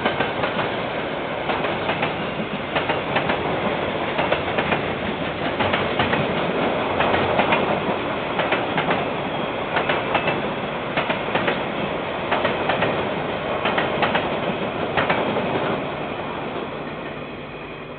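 KiwiRail train wagons rolling past, wheels clicking over rail joints in an irregular clickety-clack over a steady rumble, dying away near the end. It is heard through a security camera's microphone, which cuts off the high end.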